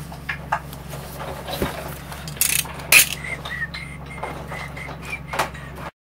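A cardboard parcel being handled and its packing tape pulled off: rustling, scraping and small knocks, with two sharp rips about two and a half and three seconds in, over a low steady hum. The sound cuts off suddenly near the end.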